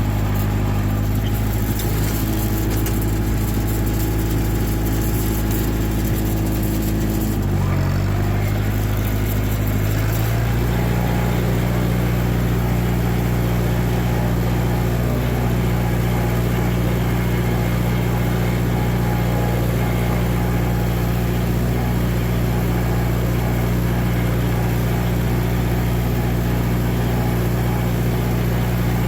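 John Deere tractor engine running steadily; about eight seconds in the engine speed dips briefly, then rises and holds at a higher, steady speed.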